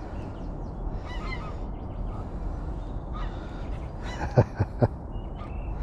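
Geese honking: three short, loud honks in quick succession about four seconds in, with fainter bird calls about a second in, over a steady low rumble.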